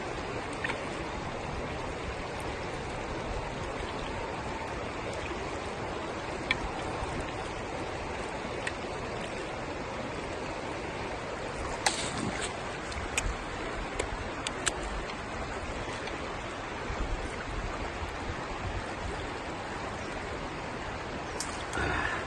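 Trout stream water flowing steadily, with a few short clicks about halfway through.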